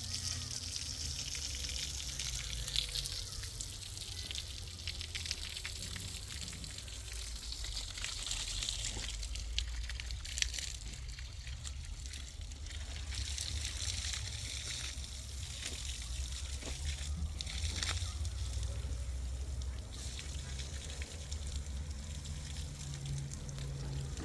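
Water running and splashing steadily, with small clicks and a low rumble underneath.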